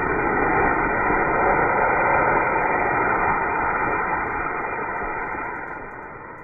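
Anar flower-pot fountain firework hissing steadily as it sprays sparks, then dying away near the end.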